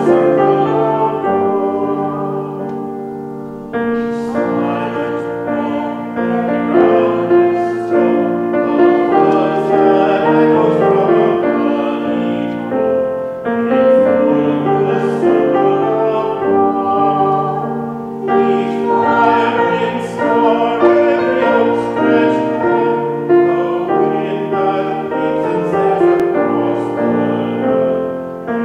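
Music: a singing voice with piano accompaniment, slow phrases of held notes a few seconds long.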